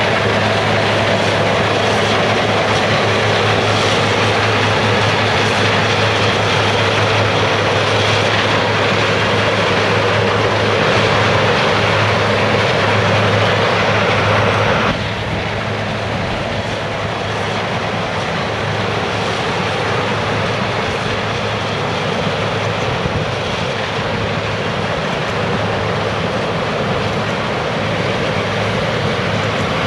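Heavy diesel farm machinery running steadily: a continuous mechanical rush over a steady low engine hum. About halfway through it cuts abruptly to a slightly quieter, similar machine noise.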